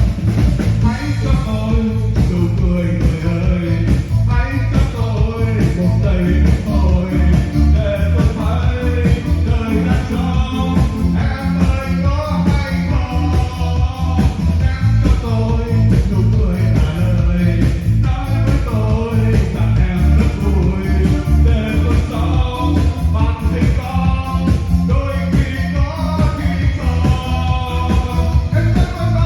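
A singer singing over backing music with a steady, heavy beat; the singer has a sore, hoarse throat.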